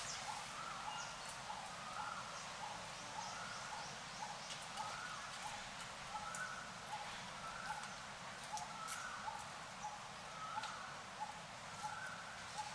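Birds calling steadily, short repeated notes a few times a second over a background hiss.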